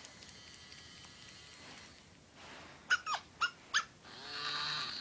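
Electronic yaps from a robotic plush Dalmatian puppy toy: four quick yips falling in pitch, then a longer whimper near the end.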